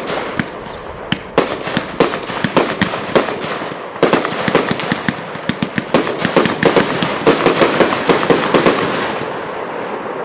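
Piromax PXC346 7-in-1 compound firework cake firing a rapid string of shots, each launch and star burst a sharp bang, in a dense volley through the middle. The shots thin out and the noise dies down near the end.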